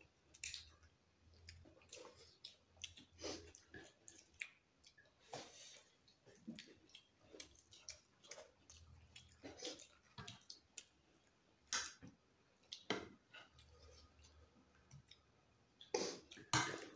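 Eating sounds: chewing, lip-smacking and short irregular clicks as rice and chicken are eaten by hand, with a few louder smacks toward the end.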